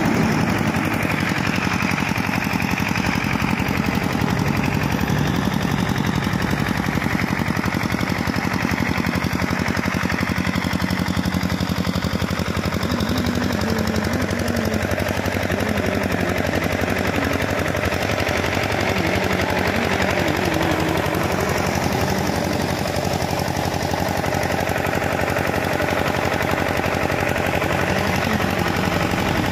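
Air compressor running steadily: a fast, even mechanical pulse at a constant level.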